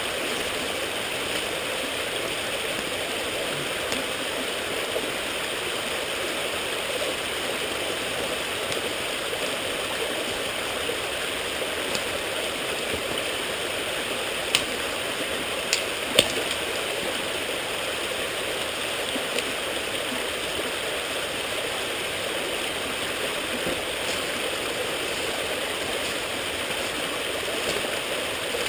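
Steady rushing of a small creek flowing close by, with a couple of brief sharp clicks about halfway through.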